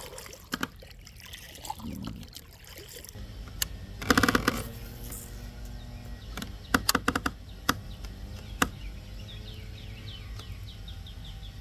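Water trickling around a small boat, with scattered knocks and a rapid run of clicks about four seconds in. A bird chirps repeatedly near the end.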